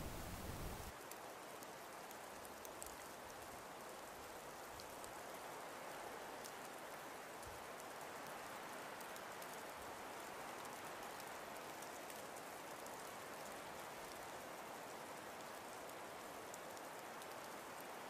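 Soft, steady hiss of a background storm-ambience track, with faint scattered ticks; a louder low sound cuts off about a second in.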